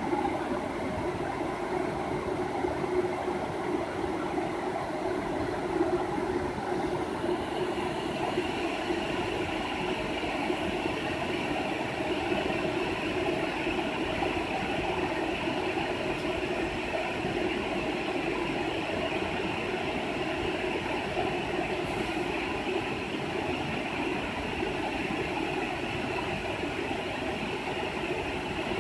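CNC router machining a panel, a steady mechanical running noise; about seven seconds in a higher-pitched whine joins and holds.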